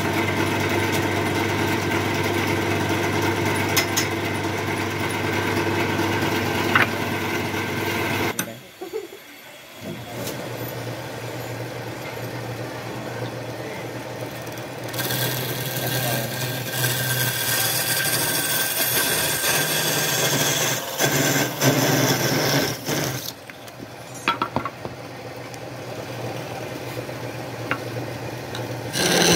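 Electric motor of a homemade wood lathe running steadily as it spins a palm log, with a short break about eight seconds in. When the hum returns, a hand chisel cuts into the spinning log with a scraping, shaving hiss that starts and stops.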